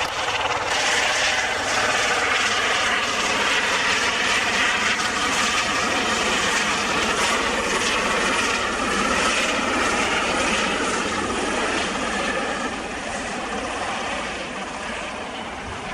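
Eurocopter EC130 B4 single-engine turbine helicopter with a Fenestron tail rotor running, a dense steady rotor and turbine noise that fades over the last few seconds.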